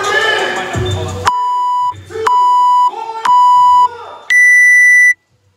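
Workout timer counting down to a start: three steady beeps a second apart, then one longer, higher beep marking the start of the workout. Music plays at first and cuts off about a second in, just before the beeps.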